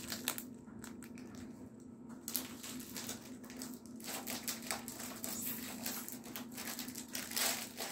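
Plastic biscuit packet being handled and opened, a run of crinkling, crackling rustles that gets busier about two seconds in.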